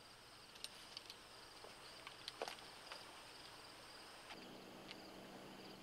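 Near silence: faint hiss of an old film soundtrack with a few soft clicks, and a faint low hum that comes in about four seconds in.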